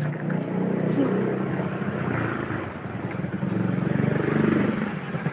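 A steady low hum or drone over street noise.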